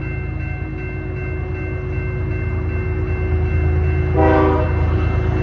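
First-generation Nathan K5HL five-chime air horn on a CP diesel locomotive sounding a held chord over the low rumble of the engines, louder as the train draws nearer, with a short, louder blast about four seconds in.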